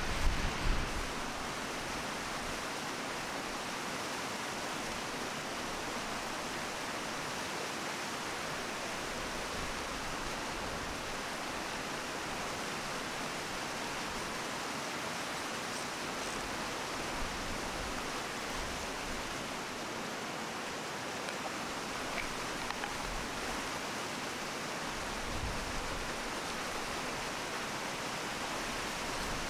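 Mountain stream running: a steady rush of water.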